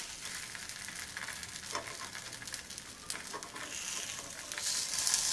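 Sabudana vada balls sizzling gently in ghee in a non-stick appam pan over a low gas flame. A few light clicks of a steel spoon against the pan come as they are turned, and the sizzle grows louder near the end.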